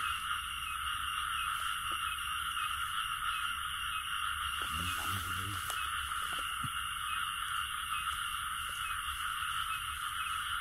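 Night chorus of frogs, a steady drone at an even level, with a brief low, muffled sound about five seconds in.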